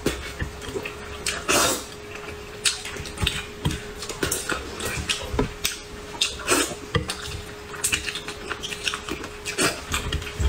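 Close-miked eating sounds of a person eating braised fish: wet chewing, lip smacks and several short slurps, with chopsticks clicking against the plate.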